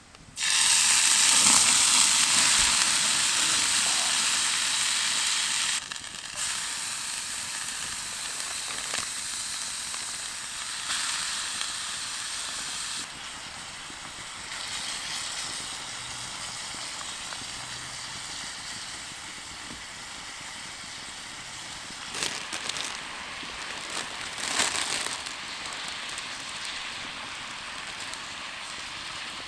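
A sudden loud sizzling hiss of steam that starts at once and dies away in stages, with a few crackles later on.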